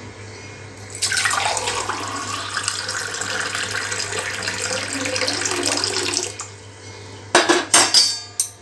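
Warm water poured from a steel saucepan into a steel tumbler: a steady splashing stream for about five seconds. Near the end, a few sharp metal clanks as the saucepan is set back on the gas stove.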